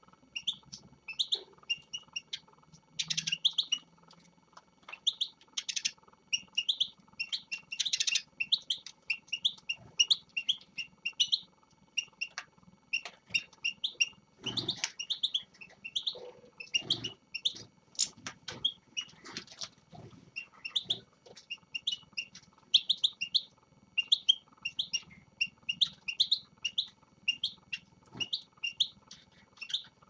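Small caged finches, European goldfinches among them, chirping: short high calls repeated over and over, several birds at once. A few soft knocks sound in the second half.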